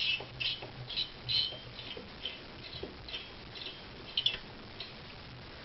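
Screwdriver turning a heatsink mounting screw: short scratchy clicks of metal on metal, a few a second, stopping about four seconds in.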